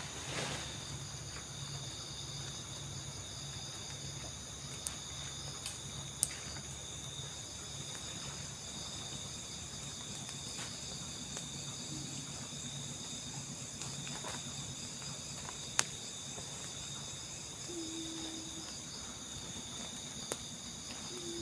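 Night insect chorus of crickets, a steady layered high-pitched trilling, with a few sharp clicks scattered through it.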